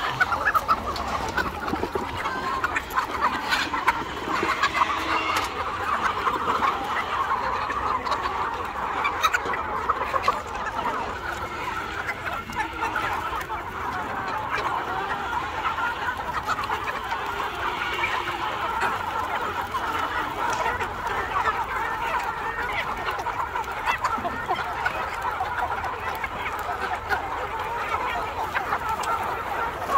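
A large flock of hens clucking continuously, many birds calling over one another at once as they crowd in at feeding time.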